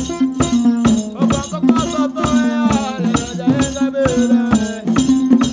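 Traditional African music: a plucked harp over a steady low note, a shaken rattle keeping a quick, even beat, and a voice singing a gliding melody.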